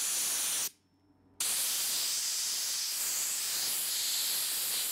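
Handheld sandblasting gun blasting abrasive at a small rusty vise part: a steady hiss of compressed air and grit. It stops for about half a second under a second in, then starts again.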